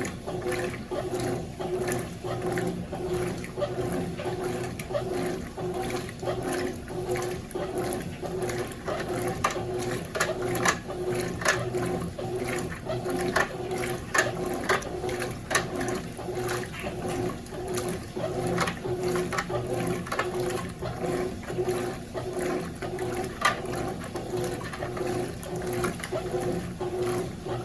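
Consul CWS12 12 kg washing machine washing a load of jeans, water sloshing over a steady hum, with frequent irregular clicks and scrapes from a magnet that has fallen inside and is rubbing against the basket.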